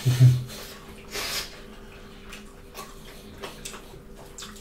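Close, wet eating sounds of people eating by hand: chewing, lip smacking and finger-licking, with small clicks throughout. A brief low hum right at the start is the loudest sound, and a short hissing slurp comes about a second in.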